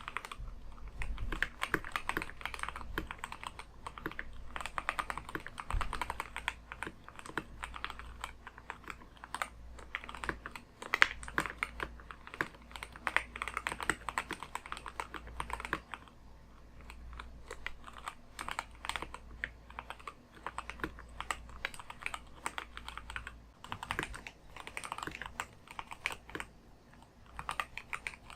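Typing on a Keychron K2 HE wireless keyboard with Gateron double-rail magnetic Hall effect switches: a steady stream of rapid keystroke clicks that thins briefly a couple of times.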